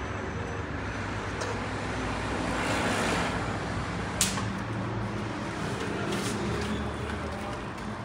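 Street traffic noise: a steady hum of vehicle engines and road noise, with one sharp click about four seconds in.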